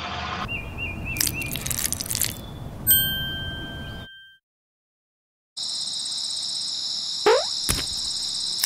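Cartoon sound effects: a short wavering high tone, then a single bell-like ding that rings out for about a second. The sound then cuts out completely for about a second and comes back as a steady high-pitched tone, with a quick rising glide and a click near the end.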